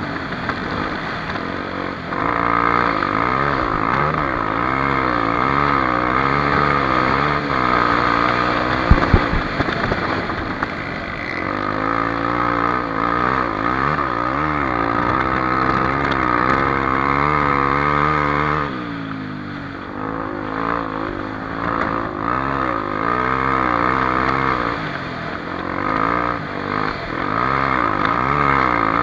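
Honda XR250 Tornado's single-cylinder four-stroke engine revving up and down as the dirt bike is ridden, its pitch rising and falling with throttle and gear changes. There are a couple of sharp knocks about nine seconds in, and the engine drops back briefly about two-thirds of the way through before pulling again.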